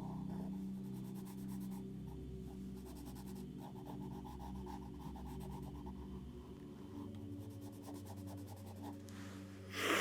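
Drawing tool scratching and rubbing across paper in short repeated sketching strokes, over a steady low hum. A brief louder rush of noise comes near the end.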